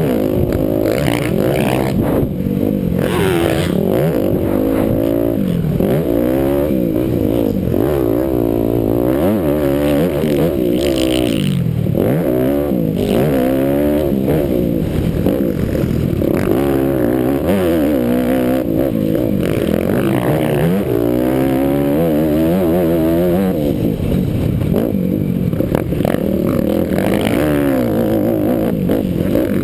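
Motocross dirt bike engine ridden hard, revving up and falling back over and over as the rider works the throttle and shifts through the track's jumps and turns.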